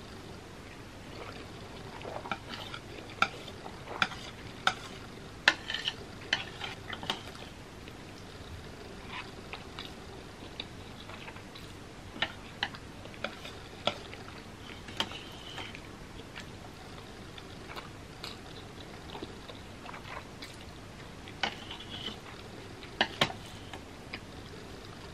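Metal chopsticks clicking and scraping against a metal sheet pan while gathering wet ramen noodles, with soft stirring sounds from the noodles. The sharp clicks come in three clusters: a couple of seconds in, around the middle, and near the end.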